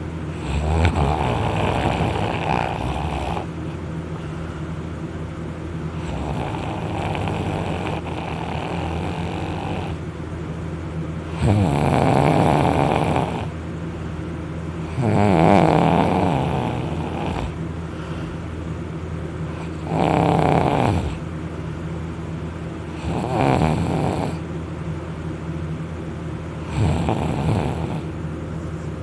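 A person snoring loudly in deep sleep after drinking alcohol, lying on their back. About seven rattling snores come every three to four seconds.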